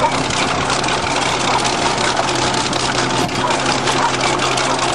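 Bulldozer's diesel engine running steadily under load, with a dense, rapid rattle over its hum.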